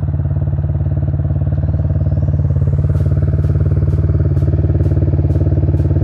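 Sport ATV engine idling steadily close by, its pitch holding level. A light, regular ticking joins about three seconds in.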